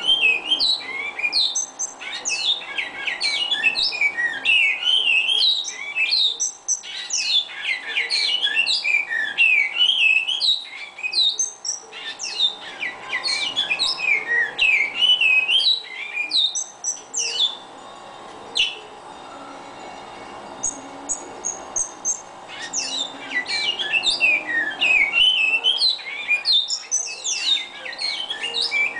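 Caged bicudo (great-billed seed-finch) singing a long, rapid run of varied chirping and whistled notes. The song pauses for a few seconds about two-thirds of the way through, then resumes.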